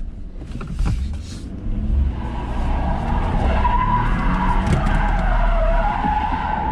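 A car driving, with a steady low road and engine rumble. About three seconds in, a wavering squeal from the wheels sets in and runs on while the car turns.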